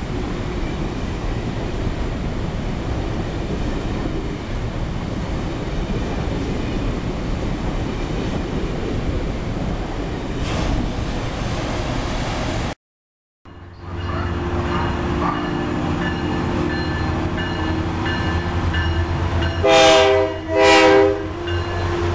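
Amtrak passenger train rolling past the platform, a steady rumble of wheels on rail. After a cut, a Metro-North BL20GH diesel locomotive runs by with its engine droning, and a train horn sounds two short blasts near the end, the loudest part.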